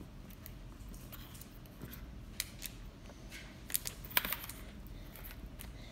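Scattered small clicks and taps of a plastic Poké Ball container being twisted and pried at by hand while its two halves stay stuck shut, with a few sharper clicks in the second half.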